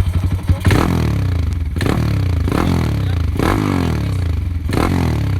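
Yamaha Sniper 150 motorcycle's single-cylinder engine, built out to 361cc, idling and being blipped on the throttle about five times. Each blip rises sharply and falls back to idle.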